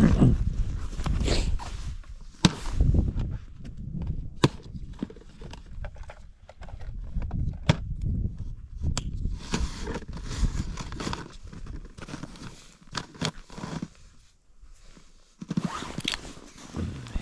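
Irregular scrapes, clicks and knocks of someone moving about and handling gear on snow-covered ice, with crunching steps.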